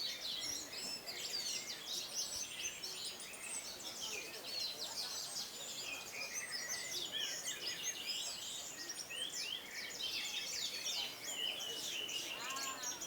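Several orange-headed thrushes singing at once, a dense, unbroken run of rapid chirps and whistled phrases.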